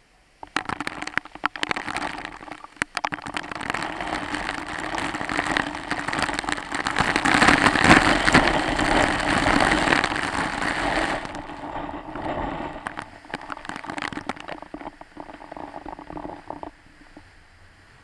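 Heavy waterfall spray pelting the camera as it passes through the falling curtain of water: a dense crackling spatter that starts abruptly about half a second in, is loudest around the middle, eases after about eleven seconds and dies down near the end.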